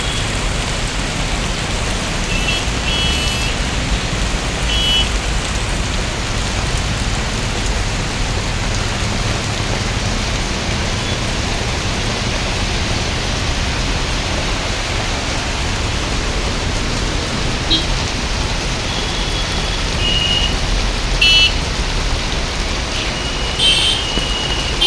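Heavy monsoon rain falling steadily, a dense even hiss, with a few short high beeps now and then.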